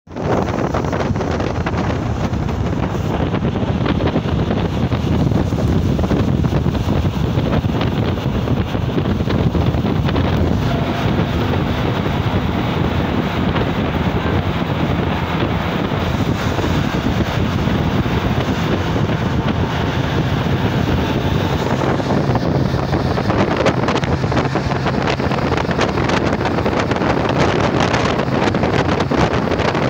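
Wind rushing over the microphone at the open side window of a large vehicle at motorway speed, over steady tyre and road noise and a low engine hum, carrying on as the vehicle drives into a road tunnel.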